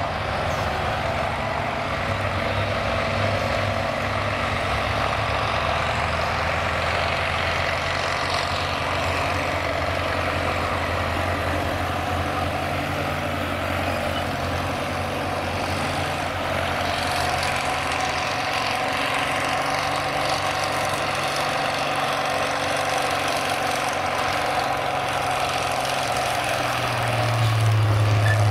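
Farm tractor engines running steadily at low speed as the tractors roll slowly by. One gets louder and deeper near the end as it passes close.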